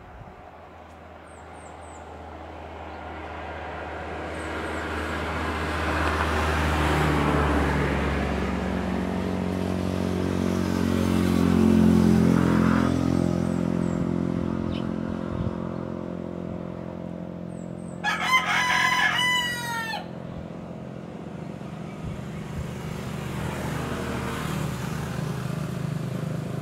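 A rooster crows once, loud and clear, about two-thirds of the way in. Under it a low engine drone swells over the first dozen seconds and then eases off.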